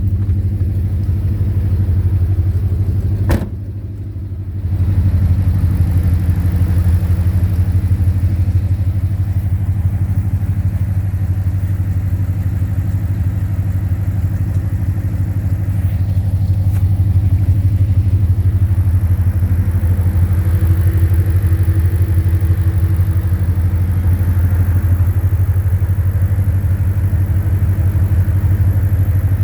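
2010 Ford Mustang GT's 4.6-litre V8 running steadily with a rapid, even knock. The owner suspects rod knock, lifter tick or a loose torque converter. A sharp click a few seconds in, then the level dips briefly.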